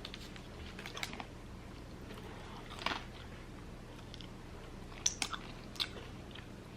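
A person chewing food close to the microphone, with a few short, sharp crunches and mouth clicks spaced a second or more apart.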